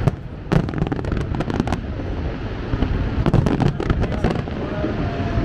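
Fireworks going off: sharp bangs, the two strongest in the first half-second, then quick runs of crackling pops around the middle, over a continuous low rumble of explosions.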